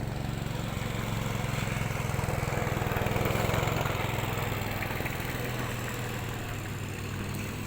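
An engine running steadily with a low, even hum, swelling a little about three seconds in and then easing.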